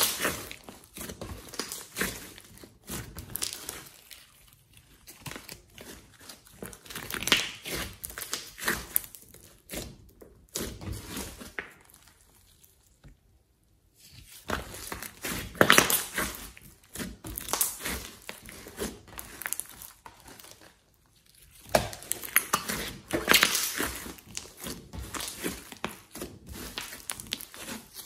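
Glossy slime mixed with clay and glitter being squeezed, pressed and stretched by hand, giving wet, sticky crackles and squelches in uneven bursts. It goes quiet briefly about halfway through, then the squishing starts again.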